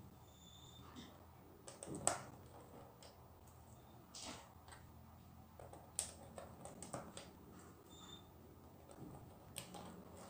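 Small plastic LEGO tiles being picked from piles and set and pressed onto a LEGO baseplate laid on a towel: faint scattered clicks and taps, the sharpest about two and six seconds in.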